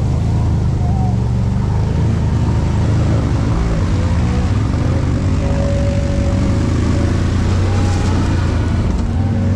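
ATV engine running steadily at low speed close to the microphone while the quad rides through shallow river water.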